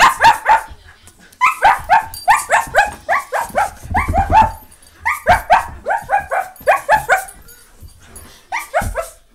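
Three-month-old Siberian husky puppy play-barking in quick runs of short, high barks, each dropping in pitch, with brief pauses between the runs.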